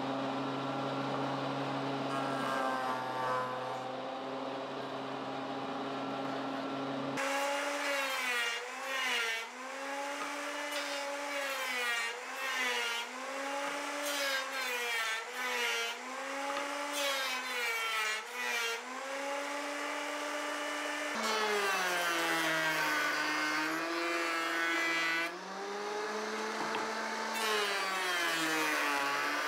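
Jointer-planer's electric motor and cutterhead running while a walnut log section is pushed across the knives, the whine sagging in pitch under each cut and recovering, about every second and a half. The pitch jumps suddenly twice, about 7 and 21 seconds in.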